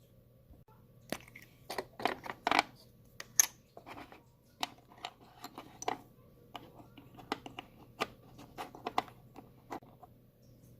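Small hard plastic pieces of a miniature toy kitchen set clicking and tapping as they are handled and set down: irregular sharp clicks, starting about a second in.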